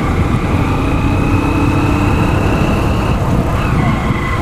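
Motorcycle engine running as the bike climbs the last of a steep slope and levels out, with a heavy low rumble throughout.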